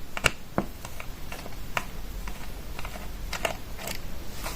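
Handheld plastic digital multimeter being handled, with scattered light clicks and taps of its plastic case and battery flap.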